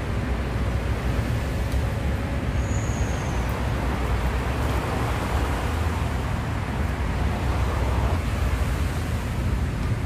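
Steady low rumble and hiss of outdoor background noise, with a brief high whistle about two and a half seconds in.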